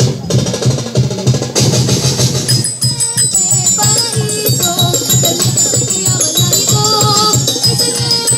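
Festival dance music: a steady drum beat with shaking rattles, and a wavering melody line joins over the beat a few seconds in.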